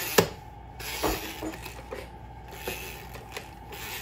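Plastic toy toaster's spring-loaded lever being pushed down and springing back up: a sharp click just after the start, a duller knock about a second in, then a few lighter clicks.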